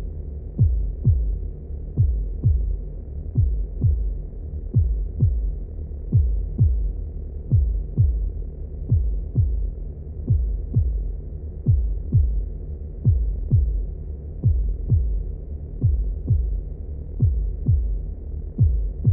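Heartbeat sound effect at 90 beats a minute: deep double thumps, lub-dub, repeating evenly about one and a half times a second over a low steady rumble.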